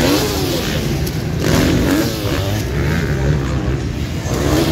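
Several motocross bikes' engines revving hard, their overlapping pitches rising and falling with throttle and gear changes.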